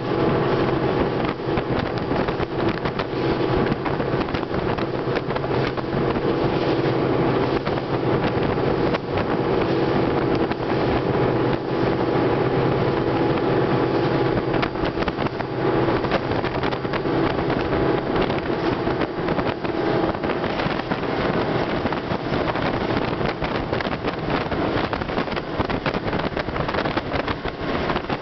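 Engine of a fast open motorboat running steadily at speed, a constant drone with wind buffeting the microphone; the engine tone eases a little in the last third.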